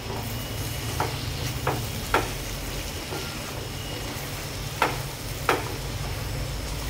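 Spatula stirring cauliflower and potato curry in a metal pot, with the curry sizzling steadily. Five sharp knocks of the spatula against the pot come at uneven intervals.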